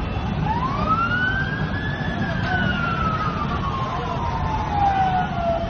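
Emergency vehicle siren giving one slow wail. It rises in pitch over about a second and a half, then falls slowly for about three and a half seconds, over a steady low rumble of traffic.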